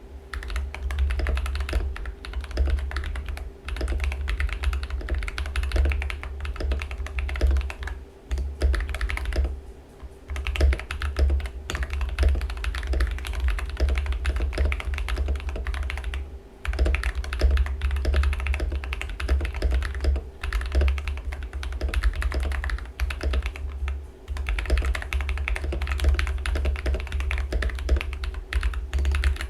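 Typing on a Rebel 60 mechanical keyboard with lubed Feker Holy Panda tactile switches and PBT keycaps: a fast, steady stream of keystrokes, broken by a few short pauses.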